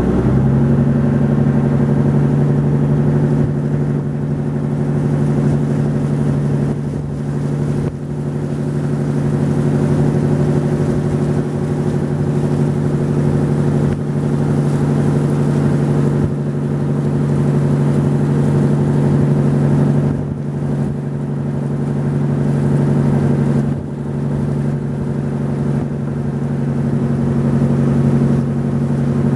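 Engine of a wooden river boat running loud and steady at cruising speed, a constant droning note that steps up in pitch right at the start.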